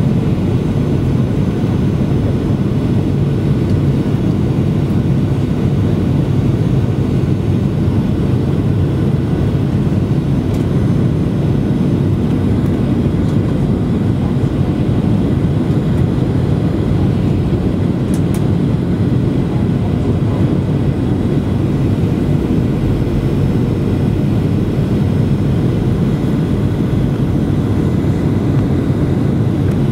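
Cabin noise of a Boeing 737-800 on approach, heard from a window seat beside the wing: its CFM56-7B26 turbofans and the airflow past the fuselage make a steady, low rumble.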